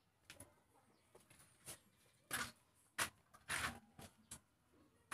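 Scattered light clicks and knocks, with a few short louder sounds among them.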